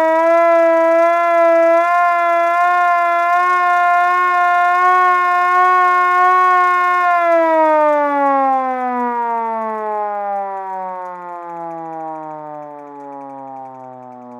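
Hand-cranked fire siren held at a steady pitch with a slight waver, then, about halfway through, winding down in a long falling tone that grows fainter as the rotor slows.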